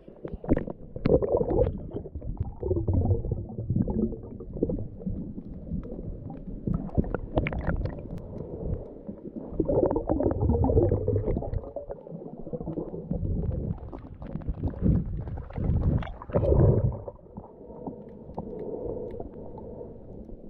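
Water moving around a camera held underwater while snorkelling, heard muffled: low, uneven rumbling and gurgling that swells and drops in surges, with scattered clicks.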